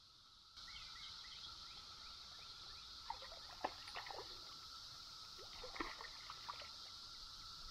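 Steady high-pitched cicada drone that comes in abruptly about half a second in, with a handful of short sharp clicks and taps scattered through the middle.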